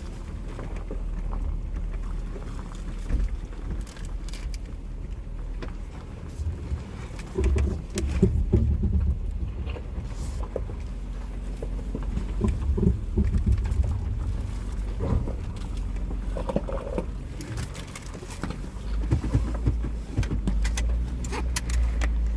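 2016 Jeep Wrangler Rubicon's 3.6-litre V6 running at low speed with a steady low rumble of engine and tyres on a dirt trail. Scattered knocks, clicks and rattles come from the body and suspension as it rolls over bumps.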